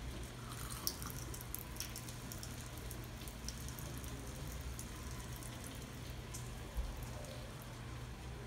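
Thin stream of water trickling from a tap into a laundry sink and onto a sweatshirt-fleece cloth-diaper insert held under it, with scattered small drips and ticks. Two sharper clicks come about a second in and near the end, over a steady low hum.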